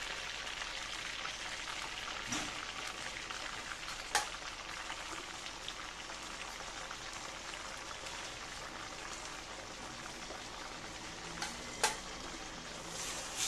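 Onion paste frying in hot oil and ghee in an aluminium pan: a steady sizzle as a spatula stirs it. Two sharp clicks stand out, about four seconds in and near the end.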